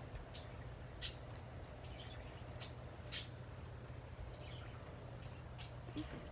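Faint, brief chirps from small birds, a few scattered over several seconds, over a steady low rumble.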